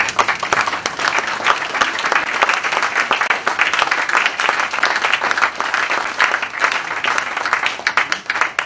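Audience applauding: a dense, even patter of many hands clapping, which stops abruptly near the end.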